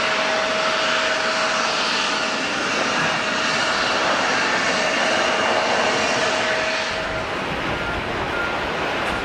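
Jet airliner engines: a steady rushing noise with a held whine in it. About seven seconds in, the rushing and whine fade and a low rumble takes over.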